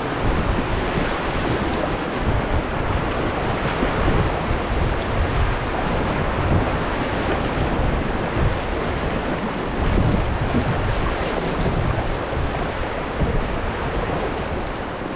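Rushing river water around an inflatable raft, with wind buffeting the microphone in irregular low gusts.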